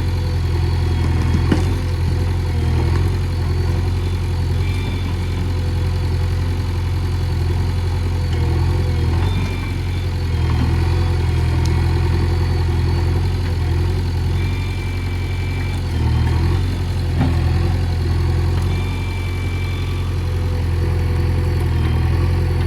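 JCB 3DX backhoe loader's diesel engine running steadily at an even low hum, with small swells in level.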